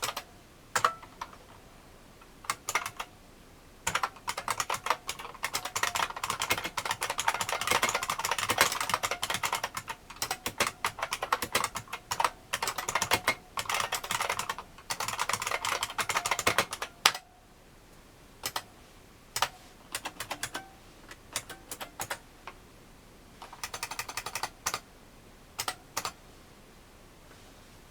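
Typing on a 1986 IBM Model M 1390120 buckling-spring keyboard, each key giving a sharp click. Fast continuous runs of keystrokes slow to scattered single presses about two-thirds of the way through.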